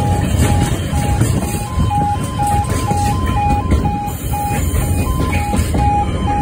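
Long container freight train rolling over a level crossing, its wagons and wheels making a steady heavy rumble. Over it the crossing's warning alarms keep beeping: two tones at slightly different pitches, each pulsing about twice a second, out of step with each other.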